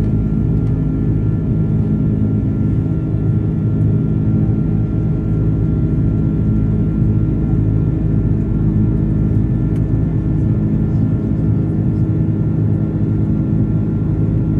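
Steady drone of an Airbus A330's jet engines and rushing air heard from inside the passenger cabin, with several constant hum tones and an even level throughout.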